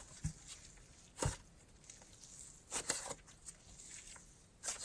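Thick icy-textured slime being worked by hand, giving a handful of short sizzly crackles and pops spread out with quiet gaps between them.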